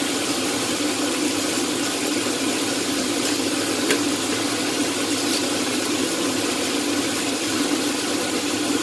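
Steady sizzle of a stir-fry cooking in a steel wok over a gas burner, with a constant low hum under it and one faint tick about four seconds in.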